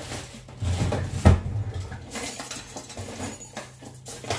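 Kitchen utensils clattering off to the side, with one sharp knock about a second in.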